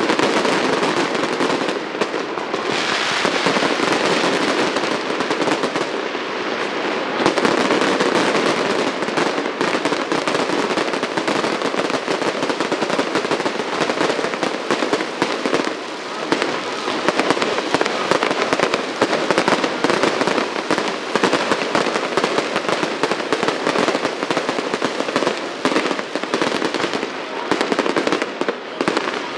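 Fireworks display: a dense, unbroken barrage of shell bursts and crackling, the bangs coming too fast to count.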